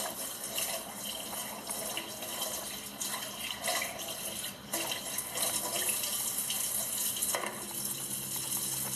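Tap water running into a sink while dishes are washed, with small scattered knocks and clinks.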